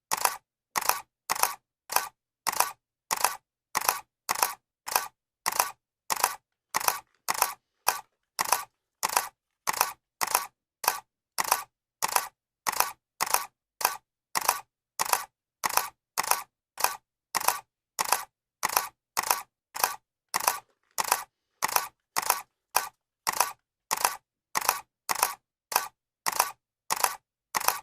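Camera shutter clicking over and over at an even pace, about two sharp clicks a second with silence between them.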